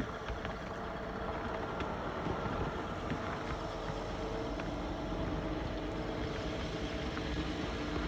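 Snowplow dump truck's engine running as the truck plows along the road, with a steady noisy rumble; its engine note drops lower about halfway through.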